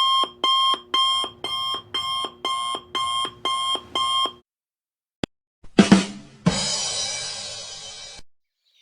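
Electronic alarm beeping two times a second, nine beeps, then stopping. About a second later comes a single click, then a sudden loud hit whose noise fades away over about two seconds.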